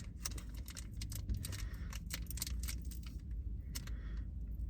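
Foil Pokémon booster pack crinkling and tearing as it is ripped open: a run of small irregular crackles and clicks over a low steady hum.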